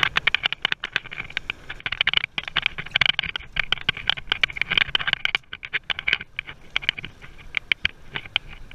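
Fishing reel clicking in rapid, uneven bursts as a hooked tuna is reeled in, with a brief pause a little past the middle.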